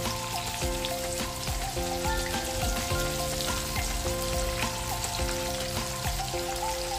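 Battered squid rings (calamares) deep-frying in hot oil: a steady crackling sizzle, with soft background music.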